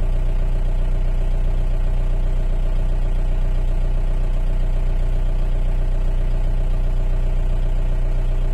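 A vehicle's engine idling steadily, heard from inside the cab.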